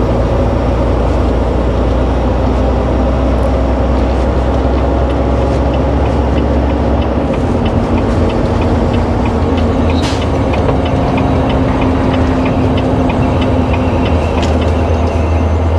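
Semi-truck's diesel engine running steadily under way, heard inside the cab, its pitch dipping slightly about seven seconds in and rising again about ten seconds in. A faint regular ticking runs through the middle.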